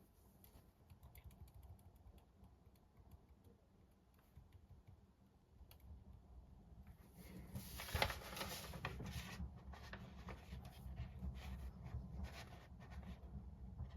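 Pen writing on paper in quick, irregular scratchy strokes, faint at first and louder from about halfway, over a steady low rumble.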